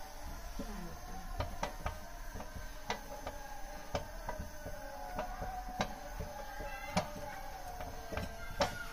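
A wooden spoon stirring and beating thick dough in a steel pot, knocking irregularly against the pot, over a faint steady hum.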